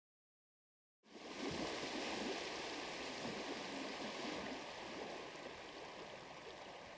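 Rushing, washing water that starts about a second in and slowly fades away.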